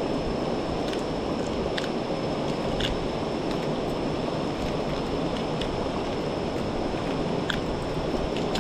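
Shallow rocky stream rushing over stones in a steady, continuous wash, with a few faint light clicks on top.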